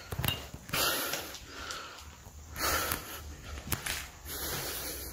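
A person breathing close to the microphone: a few breaths about a second and a half apart, with a few sharp clicks in between.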